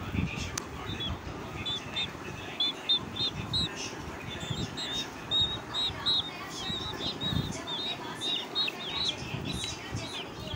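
Domestic chicks peeping: short, high chirps repeated in quick runs, some bending in pitch.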